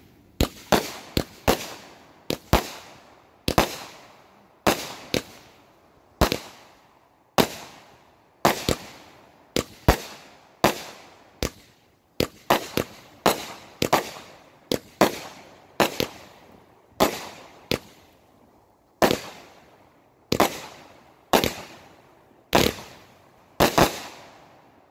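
Consumer aerial fireworks launching and bursting: a fast series of sharp bangs, about one a second and some in quick pairs, each fading with a short echo.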